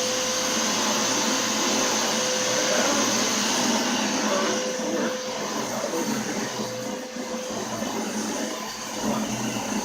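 Maytag upright vacuum cleaner running steadily, with a constant motor whine over a dense rush of air.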